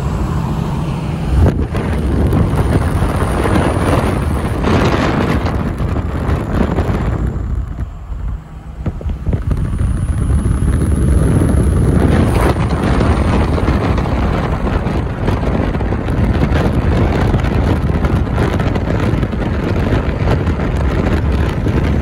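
Wind buffeting a phone microphone held out the window of a moving pickup truck, mixed with road and tyre noise. It eases briefly about eight seconds in, then comes back as loud as before.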